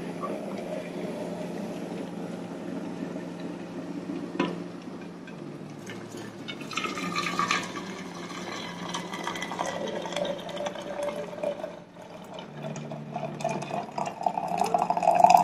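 Hot water poured from a stainless steel electric kettle into a glass teapot: a steady splashing fill with a shifting pitch as the pot fills. There is a single knock about four seconds in and a brief break in the pour near twelve seconds in.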